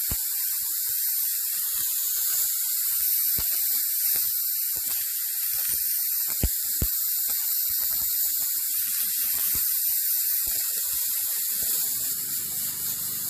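Small blade scraper lifting flaking white paint off a truck hood: scattered scratches and sharp clicks as chips pop off, two louder clicks about six and a half seconds in. A steady high hiss runs underneath.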